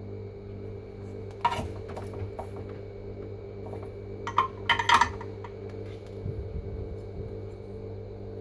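Light metallic clinks and clatter of a soldering iron and small tools being set down on a workbench, once about a second and a half in and again in a quick cluster around the middle, over a steady hum.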